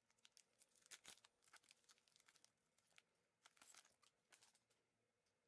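Faint crinkling and tearing of a plastic trading-card pack wrapper as it is pulled open and the cards are drawn out. The sound comes as a string of short crackles that stop about four and a half seconds in.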